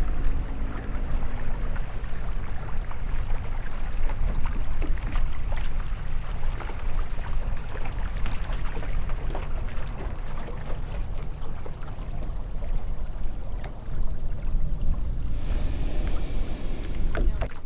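Small waves lapping and splashing at the edge of a sandy beach, with a steady low rumble of wind on the microphone.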